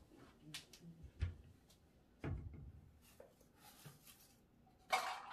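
Faint, scattered clicks and light rubbing of small bicycle-hub parts being handled while packed grease is wiped out of a Dura-Ace hub's bearing cap, with a louder brief scrape near the end.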